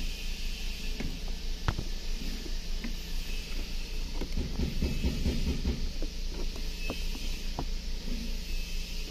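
Short clicks and small rattles of a plastic wiring connector being wiggled and unplugged by hand, over a steady low hum and hiss.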